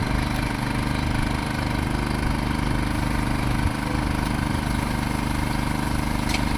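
An engine idling steadily, a constant low hum with a brief knock about halfway through.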